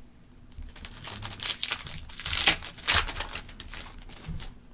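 Trading cards and their foil pack wrapper being handled: crinkling and rustling with quick clicks of cards sliding against each other, loudest in the middle.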